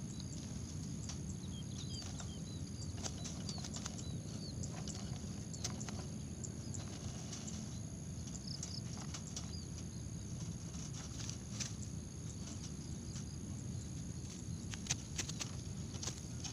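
Zebra dove stirring and fluttering, with many scattered light clicks and taps over a steady low rumble, and a few short faint high chirps from small birds.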